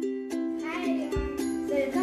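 Light background music of short plucked-string notes in a steady, bouncy rhythm, with a voice starting over it about half a second in.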